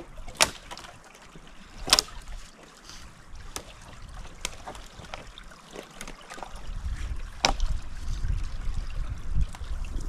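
Scattered sharp cracks and snaps of dry branches and twigs being handled in brush, with a low rumble of wind on the microphone building up from about two-thirds of the way through.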